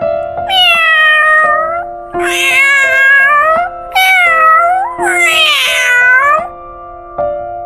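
A domestic cat meowing four times in a row, each meow long and drawn out and sliding down in pitch at the end, over background music with steady held notes.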